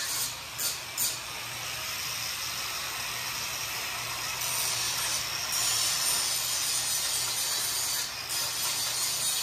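Welding arc hissing and crackling steadily, with a few short breaks near the start and again near the end.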